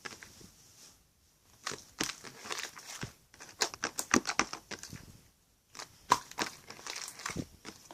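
Slime being squished and pressed by hand: runs of sharp sticky clicks and pops, with two short pauses.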